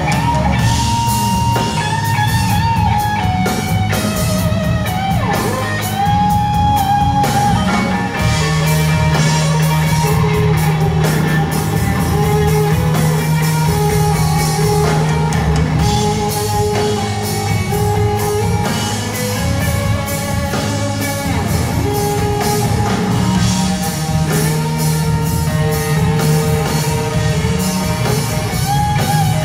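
Loud live rock band playing: electric guitar leading with held and sliding notes over bass and drums, heard from the audience in a large hall.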